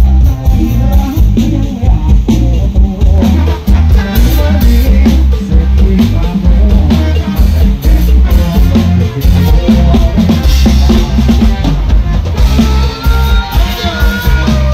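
Live Thai ramwong/sam-cha dance music played loud through a sound truck's speaker stacks: a drum kit keeps a steady, driving beat with heavy bass drum, under electric guitars. A higher melody line comes in near the end.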